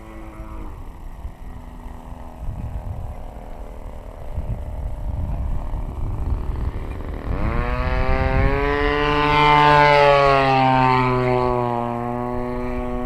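Desert Aircraft DA-35 single-cylinder two-stroke gas engine of a 73-inch AJ Laser 230z aerobatic RC plane in flight. It is faint at low throttle for several seconds, then opens up sharply about seven seconds in. It is loudest a few seconds later, and its pitch falls a little before it settles into a steady run near the end.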